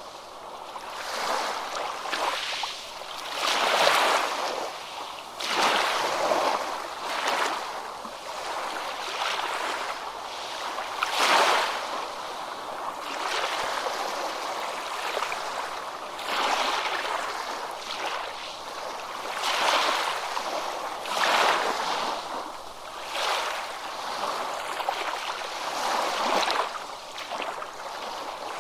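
Ocean waves breaking and washing, a hissing rush that swells and ebbs every two seconds or so.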